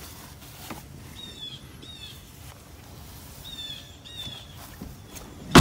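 Songbirds chirping outdoors: short downward-sliding chirps, often in pairs, every second or so over faint background noise. Near the end, one loud thump as the car's open rear door is shut.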